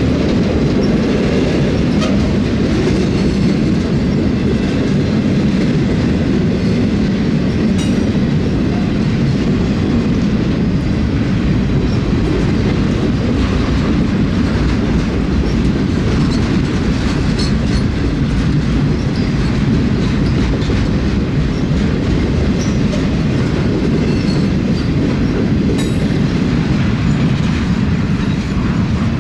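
Freight cars of a windmill-component train rolling steadily past: a continuous rumble with the clickety-clack of wheels over the rail joints, and a few faint high squeals.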